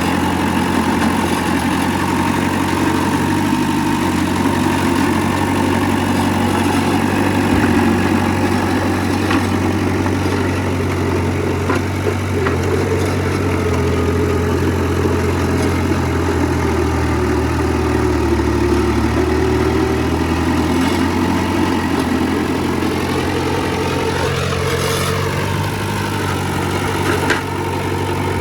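Heavy diesel engine of earthmoving machinery running steadily, with a few faint knocks.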